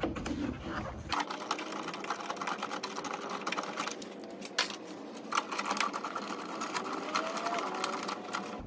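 Rapid, dense clicking of a hand-held driver with a T30 Torx bit, unscrewing a headlight mounting screw, starting about a second in and running until just before the end.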